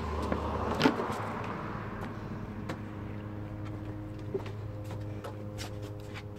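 Steady low machine hum, like an engine running nearby, with a single sharp knock about a second in and a few light taps.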